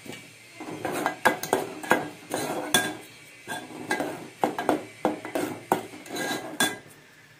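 Metal spoon stirring thick tomato masala in a metal cooking pot, clinking and scraping against the pot's sides and bottom in irregular strokes. The strokes start about half a second in and stop shortly before the end.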